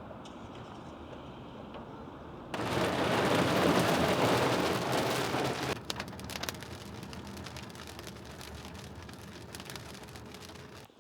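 Rain: a steady low hiss at first, then about two and a half seconds in a heavy downpour for about three seconds, easing to lighter rain with separate drops pattering.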